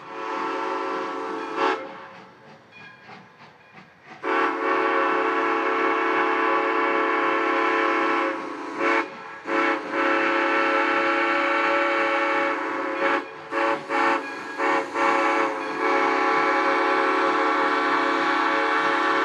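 Steam locomotive's chime whistle blowing loudly, several tones sounding together as one chord, in a crossing-style pattern. It gives a short blast, then two long blasts about four seconds each, a few quick toots, and a final long blast.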